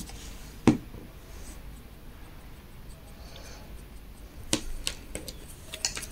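Small clicks and knocks of hands handling crochet work and small tools on a table, with one sharp knock under a second in and a quick run of lighter clicks near the end.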